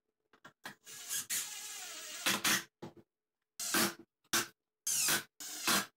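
Cordless Makita driver driving screws through a plywood gusset: one longer run of about a second and a half, then about five short bursts as the screws are driven home.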